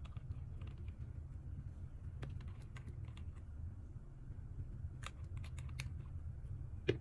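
Scattered light clicks and taps, a few close together about five seconds in, over a steady low hum.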